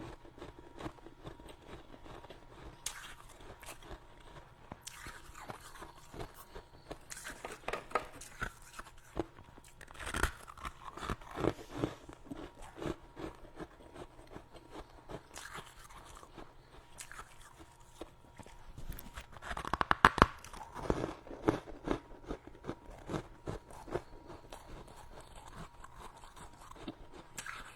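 Powdery freezer frost being bitten and chewed close to the microphone: irregular bursts of crisp crunching with pauses between mouthfuls, the loudest about two-thirds of the way through.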